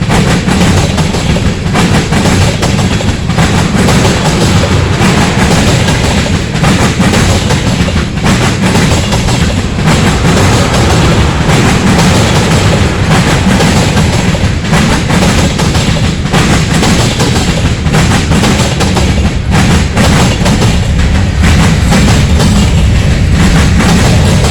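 Freight train cars rolling past at close range: a steady rumble of wheels on rail with repeated clicks and knocks as the wheels cross rail joints.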